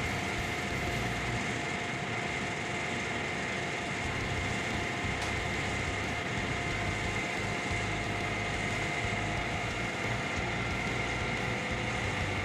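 Doosan tracked excavator with a hydraulic tree-felling saw head running steadily: an even engine drone with a constant high whine over it.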